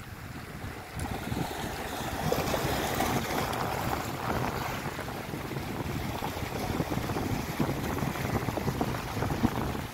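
Wind buffeting the microphone over small waves washing against the rocks below, a steady, uneven rushing noise.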